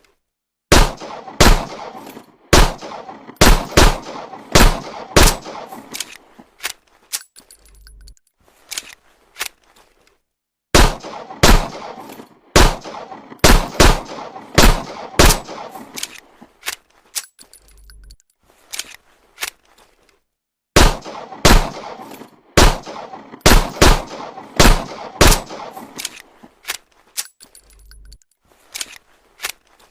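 Homemade M1911 pistol sound effect: a run of sharp shots with ringing tails, then a few lighter clicks. The same sequence repeats about every ten seconds, three times over.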